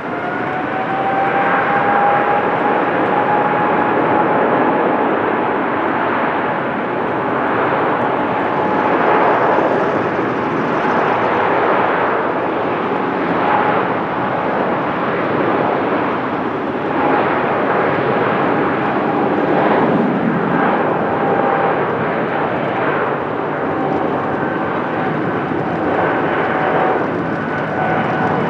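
Boeing 747-8 freighter's four GEnx turbofans running at high power on departure: a loud, steady jet roar. Over it a whining tone climbs in the first second or two, then holds level and sinks a little near the end.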